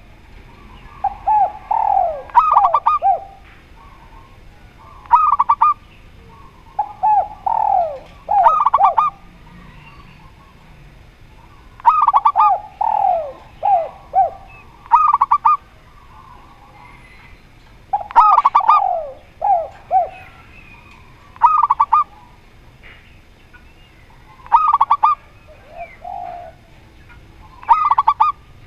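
A spotted dove (tekukur) and a zebra dove (perkutut) cooing in turn. Short, clipped high groups of coos come about every three seconds, interleaved with lower, falling coos in runs of two or three.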